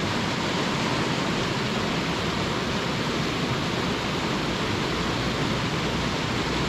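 Water rushing over a weir, a steady unbroken noise.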